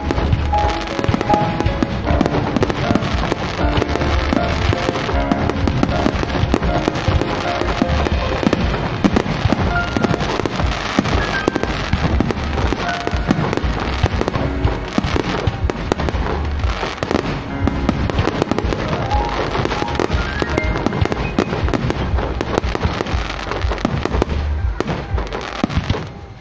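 Aerial fireworks shells bursting in quick succession at close range, a dense run of bangs and crackles, with music playing along throughout.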